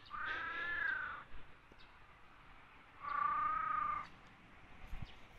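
A domestic cat meowing twice: two drawn-out meows about a second each, the pitch rising slightly and falling away, the second about three seconds in.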